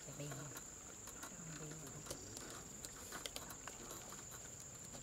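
Quiet outdoor ambience: a steady high insect whine runs throughout. Faint low murmurs come near the start and again around a second and a half in, with a few scattered small clicks.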